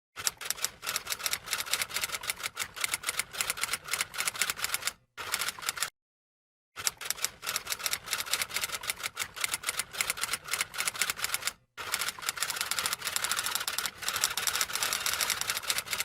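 Typewriter keys clacking rapidly as a typing sound effect, in runs broken by abrupt silent gaps.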